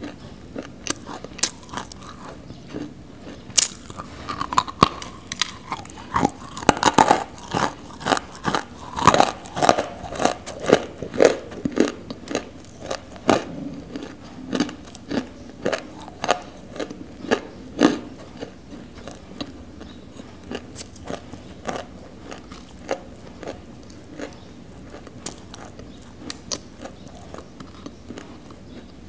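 Close-miked biting and chewing of chunks of non-roasted nakumatt clay: a run of sharp, dry crunches and crackles, thickest through the middle and thinning out toward the end.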